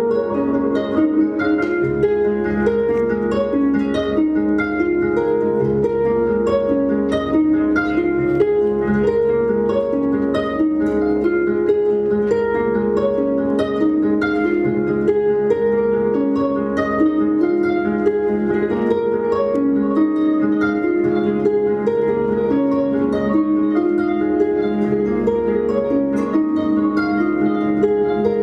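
Two pedal harps playing a duet: a steady stream of plucked notes in repeating figures, mostly in the middle register.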